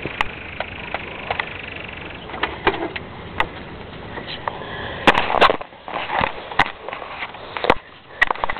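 Scattered sharp knocks and clicks over steady background noise, with a louder rustling, scuffling burst about five seconds in.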